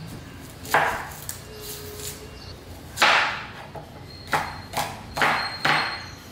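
Kitchen knife chopping red onion on a cutting board: single cuts, the loudest about three seconds in, then four steady cuts about half a second apart near the end.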